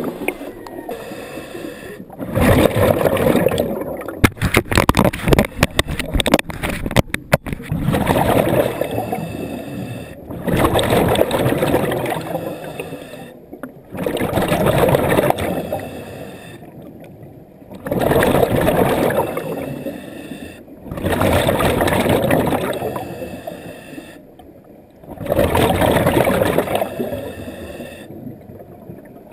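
A diver breathing underwater: exhaled air bubbling and gurgling out of the breathing gear in regular bursts about every three to four seconds, with quieter inhalations between. A quick run of clicks or knocks comes about four to seven seconds in.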